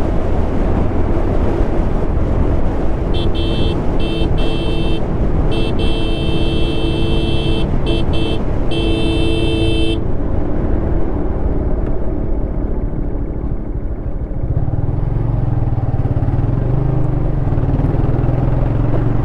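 Motorcycle riding at speed with heavy wind rumble on the mic. From about three seconds in, a horn sounds in a string of short and longer blasts for about seven seconds, honking to catch the attention of a fellow rider who does not hear it.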